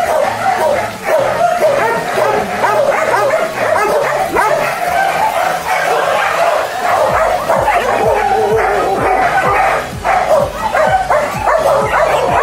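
Many dogs barking at once in shelter kennels, a dense overlapping chorus that never lets up.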